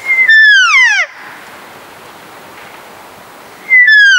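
Two cow elk mews, each a short high whistle that slides steeply down in pitch in under a second. The second begins about three and a half seconds after the first.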